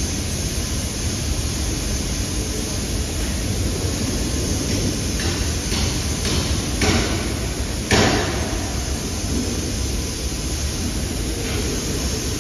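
Steady workshop background noise, with a few metal knocks and one loud metal clank with a short ring about eight seconds in, as gearmotor parts are handled on the floor.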